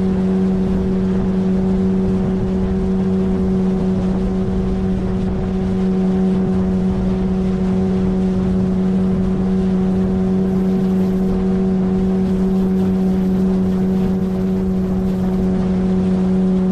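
A 9.8 hp outboard motor drives an inflatable PVC boat under way, running at a steady, unchanging speed over a rushing background noise.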